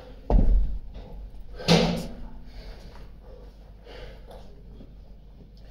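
Two 16 kg kettlebells set down on a rubber gym floor with a heavy thud, followed about a second and a half later by a second loud noise, then hard breathing.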